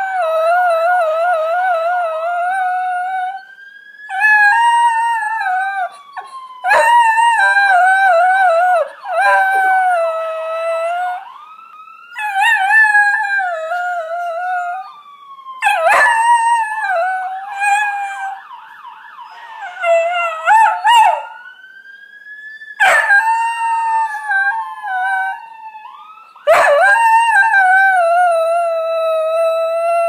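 A whippet–greyhound mix dog howling along with a police siren: about eight long, wavering howls with short breaks between them, loudest of all, over the siren's wail rising and falling slowly in pitch.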